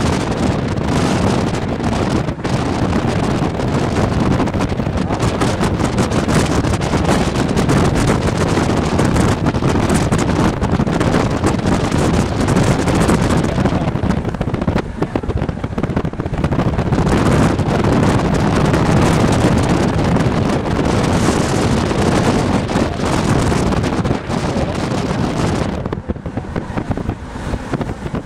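Loud, unbroken wind buffeting the camera microphone in a storm, easing a little near the end.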